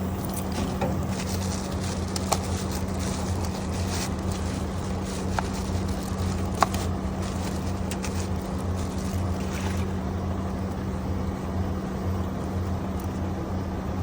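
A running engine idles with a steady low drone. Over it come light rustling and a few sharp clicks, about two, five and six and a half seconds in, as new filter elements are taken out of their plastic bags.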